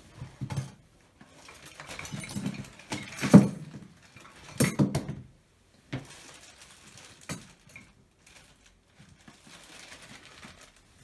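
Handling noises from a small plastic bag and the objects in it: irregular rustling and knocking as it is rummaged through, loudest a little past three seconds and again just before five seconds in.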